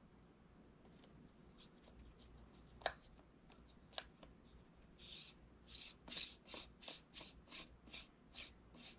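Faint handling of a circular polarizer filter on a camera lens: a couple of light clicks, then from about five seconds in a run of short scraping strokes, about three a second, as fingers turn the filter's rotating ring.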